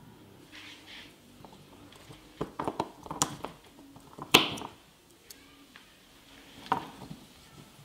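Pliers prying and tearing spot-welded nickel strips off the ends of old NiMH battery cells: a run of sharp metallic clicks and snaps, with the loudest crack a little over four seconds in and another near the end.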